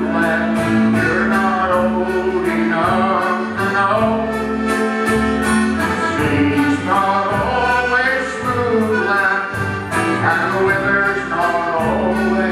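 A live band playing a sea shanty: male voices singing over acoustic guitar, electric bass, accordion and a drum kit. A cymbal keeps a steady beat of about three strokes a second.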